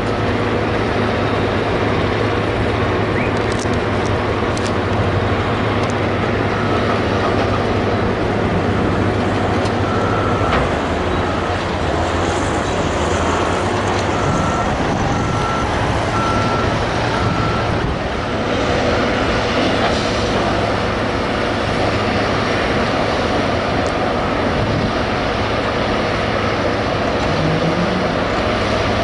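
Heavy diesel earth-moving machines (excavators, bulldozers and wheel loaders) running steadily together. Near the middle, a reversing alarm gives a run of short beeps a little under a second apart.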